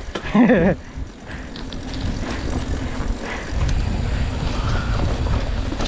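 Wind buffeting the microphone and the rumble of riding over an off-road trail, building and getting louder about three and a half seconds in. A brief voice sound near the start.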